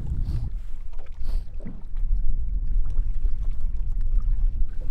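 Steady low rumble of wind and choppy water around a bass boat drifting on open water, with a few faint knocks.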